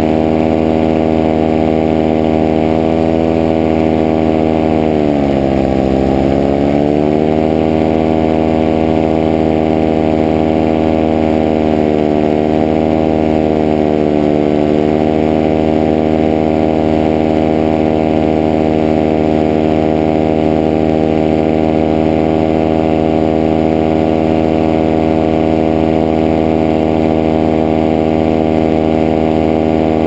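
Powered paraglider trike engine running steadily in flight. About five seconds in its pitch drops sharply as the throttle is eased, then climbs back within about two seconds. A gentler dip and recovery follows a few seconds later.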